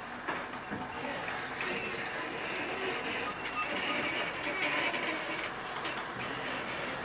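Truck tractor's engine running at low speed as it slowly manoeuvres a container semi-trailer; a steady sound without sharp knocks.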